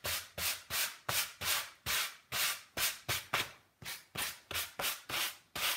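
Hand sanding block rubbed back and forth over milk paint on old, rough-sawn wood, in even strokes about two a second with a short pause about halfway: distressing the painted surface.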